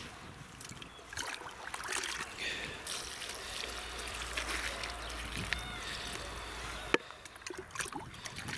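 Water trickling and splashing as plants are watered, with one sharp knock about seven seconds in.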